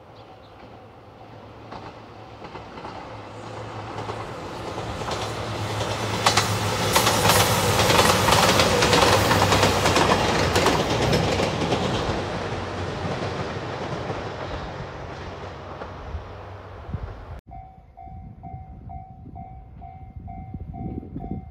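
A JR Shikoku 2700 series diesel limited express passes close by. Its engines and the clatter of its wheels over the rail joints grow louder to a peak, then fade away. After a cut, a level-crossing warning bell dings steadily about twice a second.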